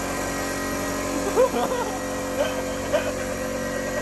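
Electric air compressor running with a steady hum, with a few short voice sounds over it about a second in and again near three seconds.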